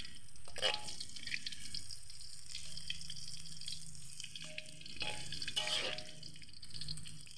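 Tofu frying in hot oil in a steel wok over a wood fire: a steady sizzling hiss, with scattered clicks and scrapes of a metal spatula against the wok as the pieces are turned. The tofu is fried through and nearly ready to lift out.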